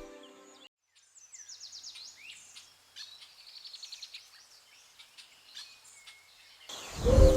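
Faint, high bird chirps and quick trills over a quiet background, as in a nature ambience track. Held music notes fade out in the first second, and loud music comes back in near the end.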